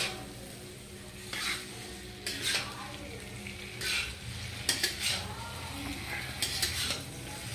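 Metal spatula stirring and scraping potato and cauliflower pieces around a metal kadhai: several short scrapes about a second apart, over a low sizzle of frying masala.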